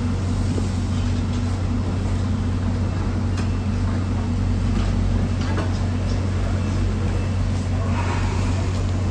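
Steady low mechanical drone of machinery running, holding one even pitch throughout, with a few faint clicks.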